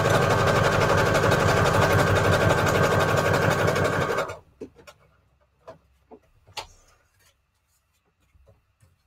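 Electric sewing machine running steadily, stitching through strips of paper, then stopping suddenly about four seconds in. After that there are only a few faint clicks and rustles.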